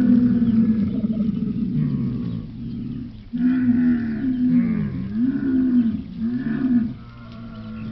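Cow mooing: one long low moo, then after a short break about three seconds in, a run of shorter moos that rise and fall in pitch.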